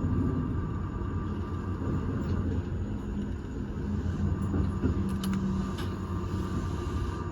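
Electric commuter train running, heard from inside the leading car: a steady rumble of wheels on rails with a faint steady hum, and a few faint clicks about five to six seconds in.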